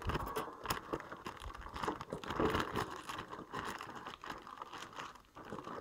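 Clear plastic wrapper of a pack of seed treat sticks crinkling and rustling irregularly, with many small crackles, as it is handled and a stick is worked out of it.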